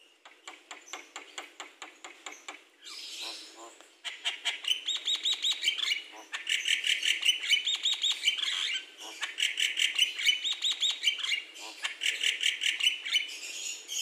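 Javan myna singing: a run of dry ticking notes, a harsh rasp, then loud phrases of fast repeated chattering notes with short breaks between them.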